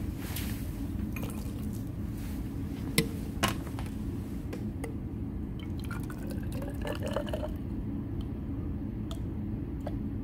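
Two sharp glass clinks about three seconds in, then water poured from a glass beaker into a glass graduated cylinder, with a slightly rising tone as the cylinder fills. A steady low hum runs underneath.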